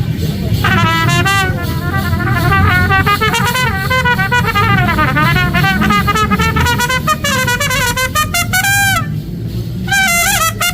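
Mexican banda brass band playing: trumpets carry a wavering melody with heavy vibrato over tubas and drums. The melody drops out briefly near the end and then comes back in.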